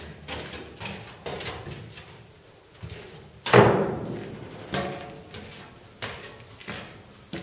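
A series of irregular knocks and thuds, roughly one a second, each with a short ringing tail, with one much louder thud about halfway through.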